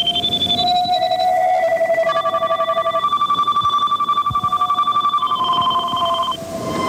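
Electronic synthesizer tones: several steady pitches sound together and step to new notes every second or two, with a fast, even pulsing. A low tone glides slowly up and later down beneath them.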